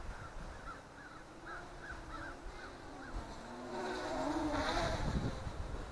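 MJX Bugs 3 brushless quadcopter's propellers buzzing at a distance, the pitch wavering up and down as the throttle changes in gusty wind, growing louder about four seconds in.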